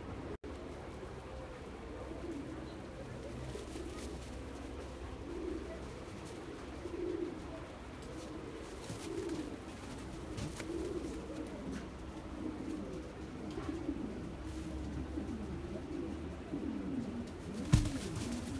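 Berlin short-faced tumbler pigeons cooing in repeated low warbling phrases, with one sharp thump near the end.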